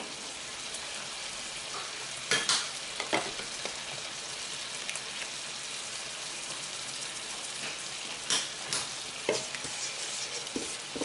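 Tomato sauce simmering with a steady sizzle in a nonstick frying pan, with a few short knocks about two to three seconds in. Near the end a wooden spoon knocks and scrapes against the pan as the sauce is stirred.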